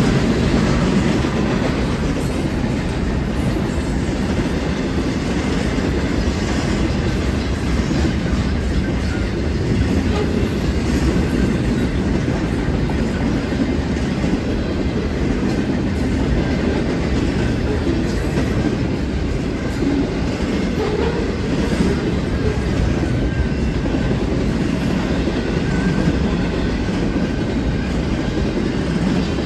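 Union Pacific intermodal freight train rolling steadily past, its cars' steel wheels running over the rails in an even, low-heavy rumble.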